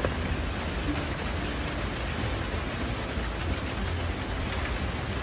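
Steady rain falling, an even hiss of drops without let-up.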